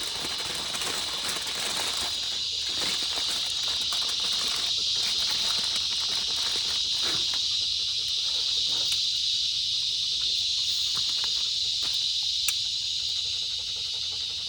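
Steady high-pitched drone of insects, with scattered crinkles and rustles of aluminium foil being wrapped around a grilled steak.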